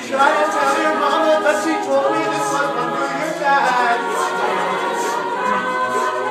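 An a cappella vocal group singing in harmony, with several voices holding sustained chords that shift in pitch every second or so and no instruments.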